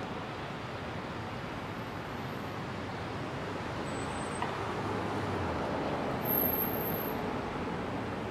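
Steady street ambience of city traffic, with a low engine rumble growing a little louder about five seconds in.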